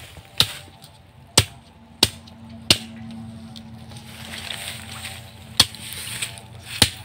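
Machete chopping into a nipa palm fruit head with six sharp chops, four in quick succession at the start and two more near the end. A faint steady drone runs under the later chops.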